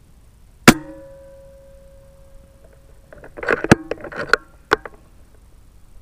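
A .25 PCP air rifle fires one sharp shot that rings on metallically for about two seconds. A second or so later comes a quick series of mechanical clicks and clacks, the action being cycled to chamber the next slug.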